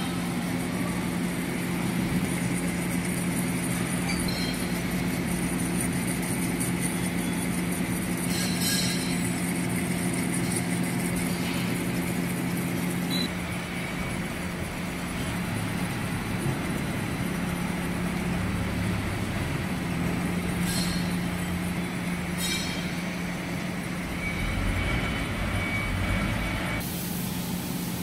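Metal lathe running with a steady motor and gearbox hum while a turning tool cuts a bronze split bushing held in the three-jaw chuck, with a few short clicks. A burst of hiss comes near the end.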